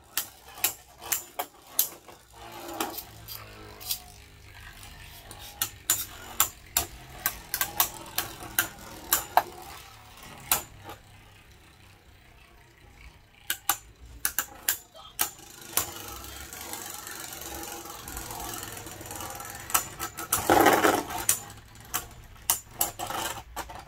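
Two Beyblade Burst spinning tops clashing in a plastic stadium: a run of sharp plastic clicks and clacks as they hit each other and the stadium wall, over a faint spinning whir. The clashes thin out around the middle, and there is a louder burst of sound about 20 seconds in.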